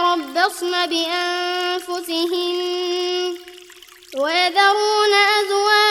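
Quranic recitation in a high, melodic chanting voice, holding long drawn-out notes with small ornaments. About three and a half seconds in it breaks off for a short breath, then comes back in on a rising glide.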